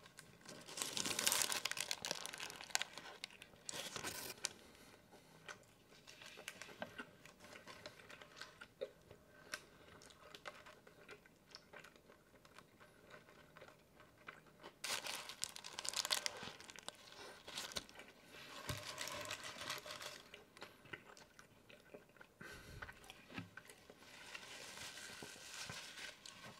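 Paper burrito wrapper crinkling as the burrito is handled, in several bursts, the loudest about a second in and again around the middle, with bites and chewing of the burrito between them.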